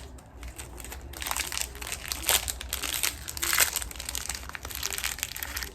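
Small plastic packaging bags crinkling as they are handled and opened, a dense run of irregular crackles with louder crunches about two and three and a half seconds in.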